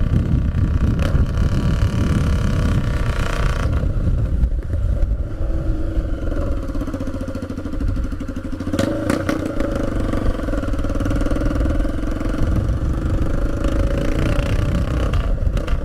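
Motorcycle with a straight-pipe exhaust, only the bare pipe and no muffler, running loud while being ridden. The engine eases off about halfway through, then pulls again.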